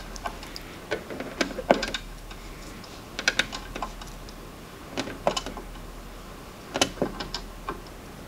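Small plastic LEGO round 1x1 tiles being pressed onto the studs of a LEGO baseplate, each landing with a sharp click. The clicks come in small clusters about every one to two seconds.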